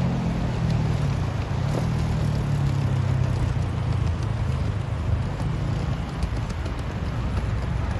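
City street traffic: car engines running with a steady low hum.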